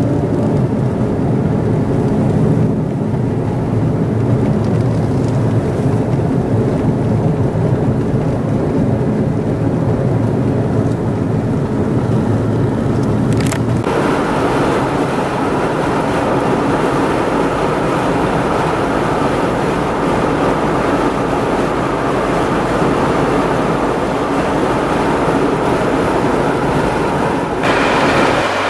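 Car driving, heard from inside the cabin: a steady engine hum and tyre-on-road noise. About halfway through the sound changes abruptly to a louder, hissier road noise, and it changes abruptly again near the end.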